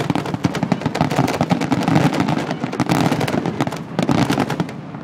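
Fireworks grand finale: aerial shells bursting in a rapid, continuous barrage, many loud bangs and pops a second overlapping one another.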